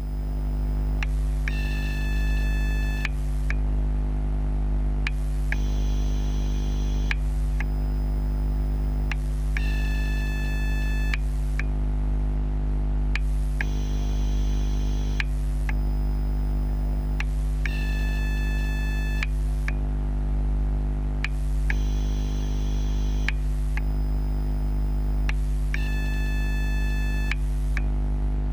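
TGX12 Ni-MH/NiCd battery charger humming and whining electrically while charging, picked up through contact microphones on the charger. A steady low hum runs under high-pitched whining tones that switch on and off with a click about every two seconds, in a pattern that repeats about every eight seconds.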